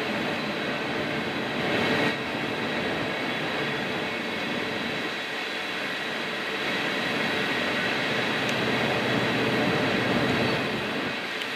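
Union Pacific covered hopper unit train rolling across a high steel viaduct: a steady noise of steel wheels on rail with small swells.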